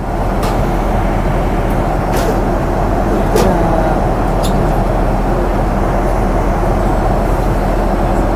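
Steady airliner cabin noise in cruise flight: the even rumble and hiss of the engines and airflow, with a few faint clicks in the first half.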